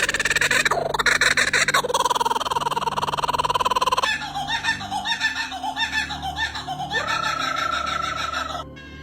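Bird calls: about four seconds of a rapid, raspy rattling call, then shorter wavering calls, then one held whistle-like note that stops shortly before the end.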